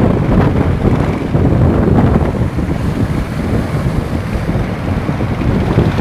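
Strong wind buffeting the microphone: a loud, gusting low rumble with no steady tone.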